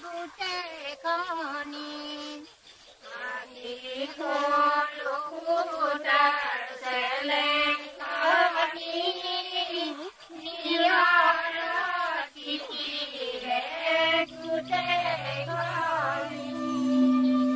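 Chant-like singing with long, wavering sung lines. A steady low drone comes in near the end, under the voice.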